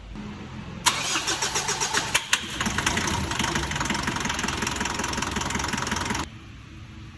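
Mitsubishi 4D56 four-cylinder diesel engine cranking, then catching about a second in with a rapid run of loud knocks, settling into steady running and cutting off abruptly near the end. The knocking comes with a hard start.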